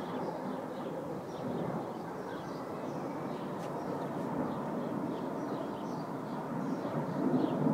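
Distant steady jet rumble of an Aermacchi MB-339 formation flying past, with small birds chirping repeatedly over it.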